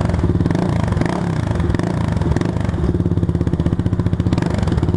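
Yamaha Fazer 250 single-cylinder engine idling through a Jeskap GP Carbon aftermarket exhaust with its dB killer baffle fitted, a steady, even, deep pulsing exhaust note.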